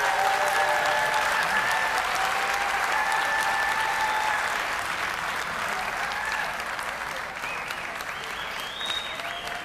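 Audience applauding and cheering: loud clapping with a few held voices over it, swelling just before and slowly dying down.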